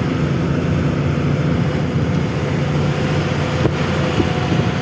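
Truck engine running steadily on the move, a low hum with road noise.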